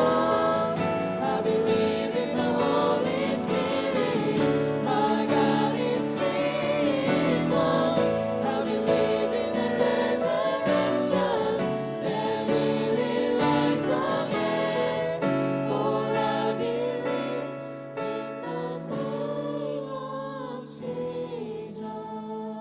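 A group singing a worship song over instrumental accompaniment, gradually fading toward the end.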